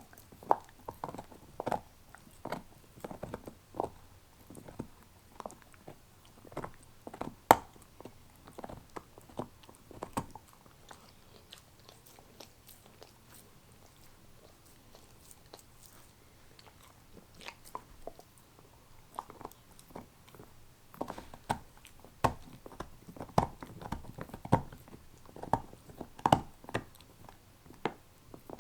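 A dog gnawing and chewing a beef neck bone: irregular crunches and sharp clicks of teeth on bone. The chewing thins out to occasional clicks for several seconds in the middle, then picks up again.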